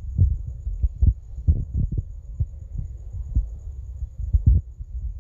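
Wind gusting across the phone's microphone, giving an irregular low buffeting rumble and thumps.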